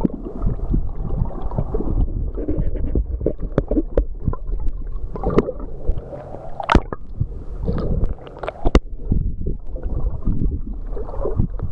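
Seawater sloshing and gurgling around a camera moving in and out of the surface, with irregular sharp clicks and pops throughout.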